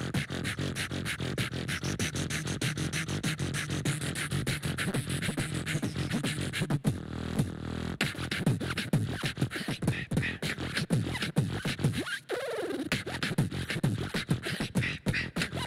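Beatbox-style hip-hop beat: a fast, dense run of vocal-percussion strokes, accompanying street dancers. A falling swoop comes about twelve seconds in.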